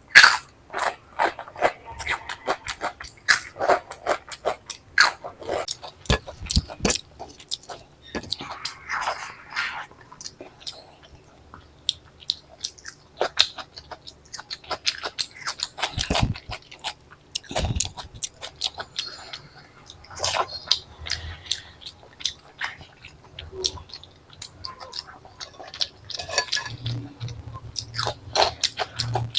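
A person chewing food close to the microphone: wet mouth sounds and chewing with many sharp crunches, as of crisp potato chips eaten along with rice and egg curry.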